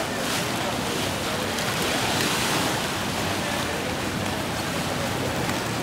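Steady rush and splash of churned sea water alongside a small motor boat, with wind on the microphone and a low engine hum underneath.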